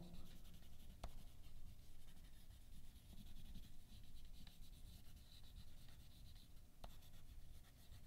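Faint scratching of a wax crayon coloring on paper in repeated strokes, with two light ticks, one about a second in and one near the end.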